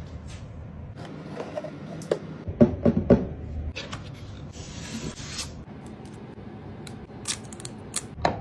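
Hands handling packaging during an unboxing: rubbing and scraping, a cluster of sharp knocks and clicks a bit before halfway, and a hiss lasting about a second in the middle.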